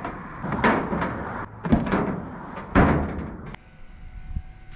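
Three loud knocks and clanks about a second apart as a wooden stick strikes the man lift's basket and straps, each with a short metallic ring, followed by a faint steady hum.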